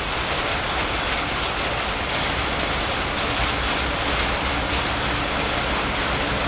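Steady hiss of rain, with the low rumble of an electric train approaching from a distance.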